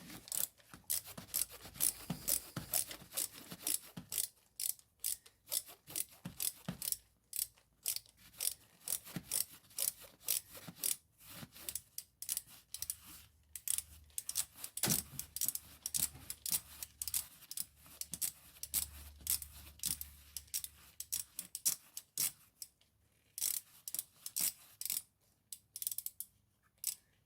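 Hand ratchet wrench with a socket clicking in quick runs with short pauses, undoing the bolts that hold the ignition coils over the spark plugs.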